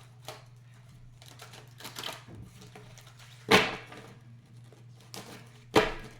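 Deck of tarot cards being shuffled and handled, with a few sharp slaps of cards, the loudest about three and a half seconds in, over a low steady hum.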